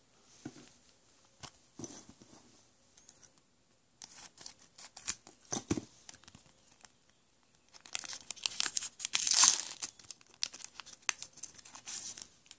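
Pokémon booster pack wrapper crinkling and tearing as it is opened by hand. Scattered crackles at first, then a dense stretch of crinkling and tearing in the last few seconds, loudest a little past the middle of that stretch.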